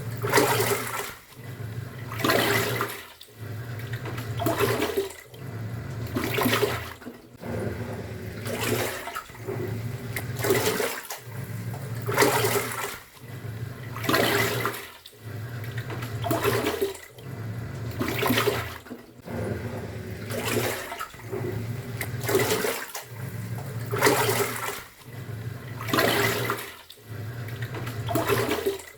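Top-loading pulsator washing machine agitating: water churns and sloshes in a surge about every two seconds, with the motor humming between surges as the pulsator turns one way, pauses and turns back.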